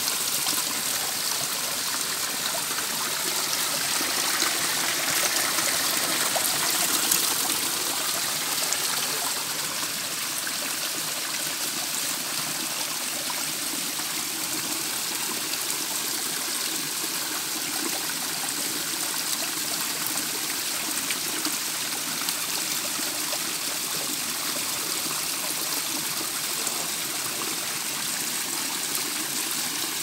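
Small waterfall running low, its thin flow splashing down a layered rock face in a steady hiss. About four seconds in it swells a little for a few seconds, then settles.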